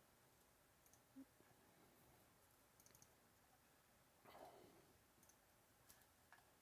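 Near silence with a few faint, scattered clicks and one soft rustle about four seconds in.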